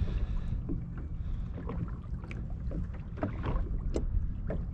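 Water lapping and splashing lightly against a kayak hull, with small scattered knocks and a steady low wind rumble on the microphone.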